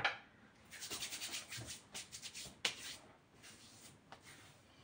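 A short click, then hands rubbing together and patting on the face and neck in quick soft strokes, skin on skin, as drops of eau de parfum are spread on. One sharper pat comes just past the middle, and the strokes grow fainter toward the end.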